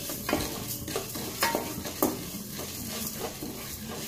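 Wooden spatula stirring peppercorns, cumin seeds and fenugreek seeds as they dry-roast in a kadai. Each stroke gives a short rattling scrape of the seeds over the pan, several in a row.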